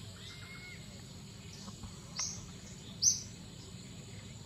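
A bird calling in short, high-pitched chirps, twice about a second apart in the second half, the later one the loudest, with a fainter drawn-out whistle near the start, over a steady low background hum.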